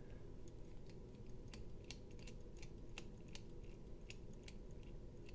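Faint, irregular metallic clicks, about two or three a second, as a screwdriver bit turns in a screw on a folding knife's handle while the screw is being loosened.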